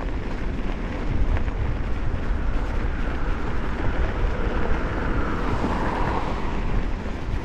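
Wind rushing and buffeting over the microphone while cycling, with road noise. A broader rush swells and fades about five to six seconds in.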